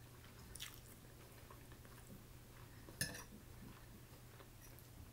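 Quiet chewing of a mouthful of food, with a faint click just under a second in and a sharper click about three seconds in, over a steady low hum.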